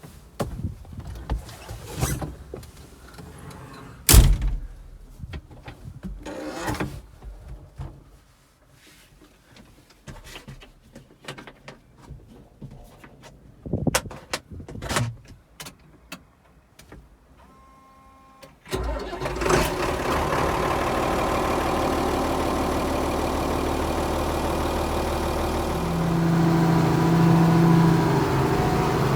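Scattered knocks and clicks, like a cab door and controls being handled, then a Ford TW-15 tractor's diesel engine starts about two-thirds of the way in and runs steadily. Near the end it gets louder and a steady whine joins it.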